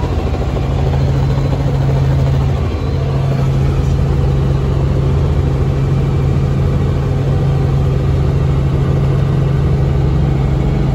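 Helicopter in cruising flight heard from inside the cabin: a steady, loud drone of engine and rotor with a strong constant low hum.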